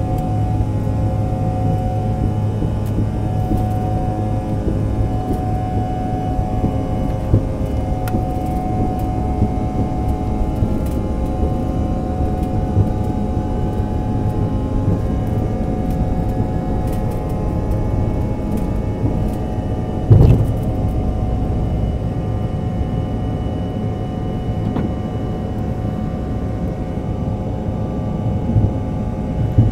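Cabin sound of a Bombardier CRJ-200's twin rear-mounted GE CF34 turbofans at takeoff power, with steady rumble and whine through the takeoff roll and climb-out. There is one loud thump about two-thirds of the way through and a smaller one near the end.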